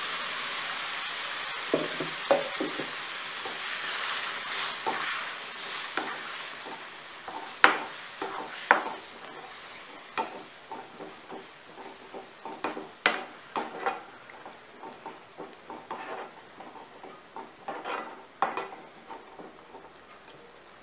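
Puréed tomato sizzling in hot oil and masala in a non-stick kadai, the hiss fading over the first several seconds. A perforated steel skimmer ladle stirs it, knocking and scraping against the pan in many sharp clacks.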